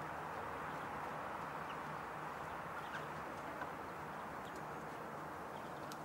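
Steady outdoor background noise, with a few faint, short, high ticks scattered through it.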